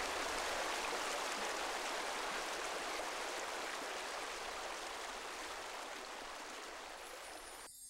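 Stream water flowing over rocks as a steady rushing wash with no separate splashes. It fades slowly and then stops abruptly near the end.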